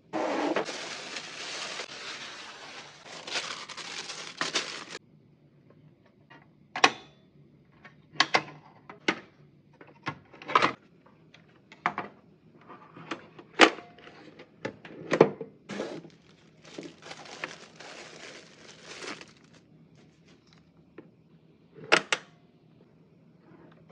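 Close-up unboxing handling of a uvex pheos S-KR safety helmet. First a few seconds of continuous rustling from the packaging, then a string of separate sharp clicks and knocks as the plastic helmet and its parts are handled, with more rustling partway through.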